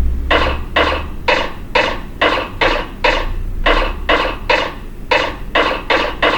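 Electronic keyboard playing its built-in gunshot sound effect, struck about fourteen times in quick succession, roughly two sharp bangs a second.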